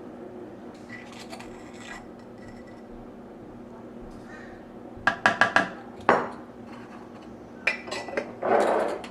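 Kitchenware clattering: a quick run of sharp clinks and knocks about five seconds in, another knock a second later, then more clinks and a short scrape near the end.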